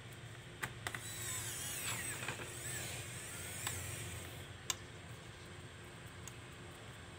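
A screwdriver driving small screws into a laptop, giving a wavering high squeaky whine for about three seconds, with a few sharp clicks before and after.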